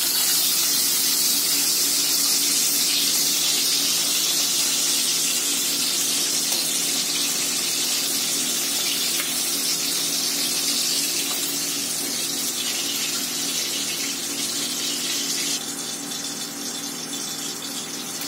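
Hot oil sizzling steadily in a kadhai with fried bitter gourds, the flame turned off, slowly dying down and dropping noticeably near the end.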